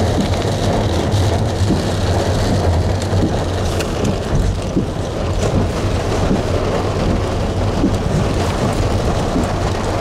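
Heavy rain drumming on a car's roof and windows, over a low steady hum.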